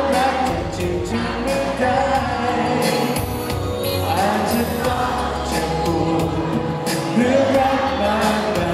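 A man singing a pop song live into a handheld microphone, with instrumental accompaniment.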